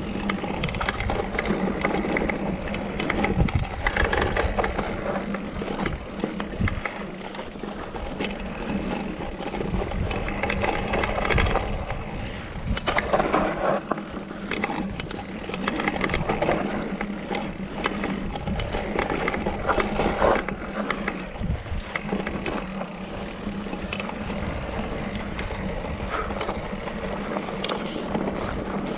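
Mountain bike riding over a dry dirt trail: tyres crunching on dirt and loose gravel, with the bike rattling and knocking over bumps.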